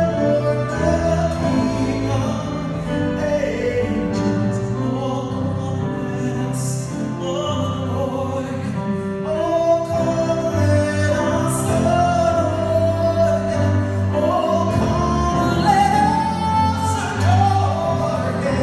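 Male vocalist singing a Christmas carol live, held notes gliding between pitches, accompanied by grand piano and a small string ensemble of violins and cello.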